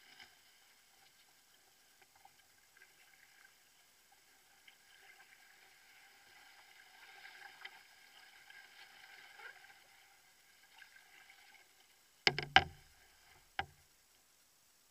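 Canoe being paddled on a lake: faint water swishing, then near the end three sharp knocks against the canoe's hull in quick succession and a single knock about a second later.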